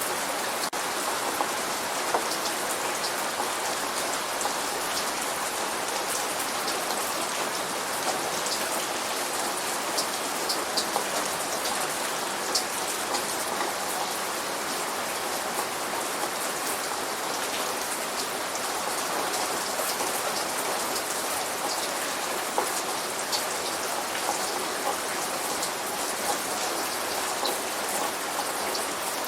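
Steady light rain falling on a surface, an even hiss with many small, distinct drop ticks scattered through it.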